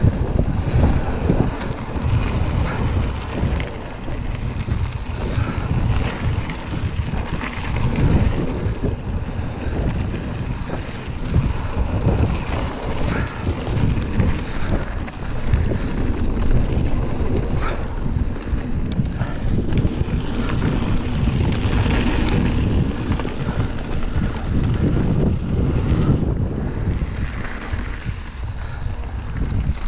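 Wind buffeting the microphone of a mountain-bike camera during a descent, over a steady rumble of tyres on the trail. Frequent knocks and rattles come from the bike on rough ground throughout.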